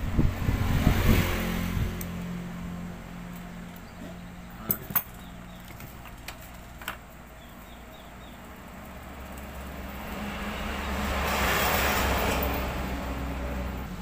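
Motor vehicles passing: one loud at the start and fading within about two seconds, a second rising to a peak near the end and dying away, over a steady low engine hum. A few sharp clicks come in the middle.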